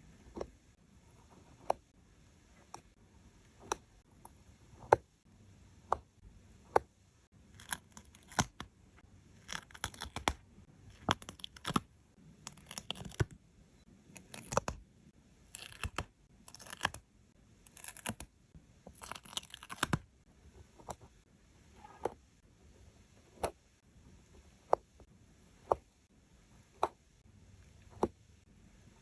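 Stickers being peeled off their backing sheet and pressed down, a papery tearing crackle with short sharp clicks about once a second and longer stretches of peeling in the middle.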